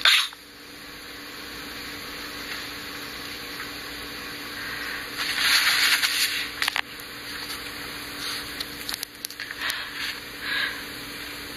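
A person sneezing: one short, sharp sneeze right at the start and a longer, louder noisy burst about halfway through, followed by a few shorter, softer bursts of breath. Steady hiss and a faint hum run underneath.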